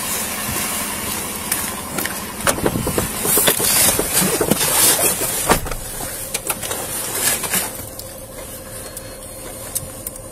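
Rustling and clicking of a body-worn camera rubbing on a police officer's uniform as he walks and climbs into a patrol car, with knocks from handling the door and seat. The noise is loudest in the middle, then settles about two thirds of the way in to a quieter, steady hum inside the car.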